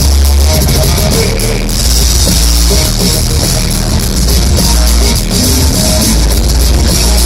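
Loud DJ backing music with a heavy bass line and drums.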